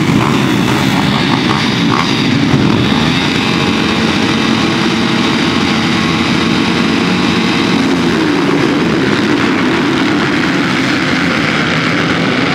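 Many motocross bikes' engines running together at high revs, a dense, steady engine noise.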